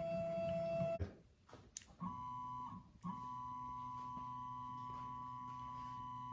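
CNC machine's stepper motors whining steadily as an axis is jogged. One tone stops about a second in, and after a pause a higher-pitched whine starts, breaks off briefly and then runs on.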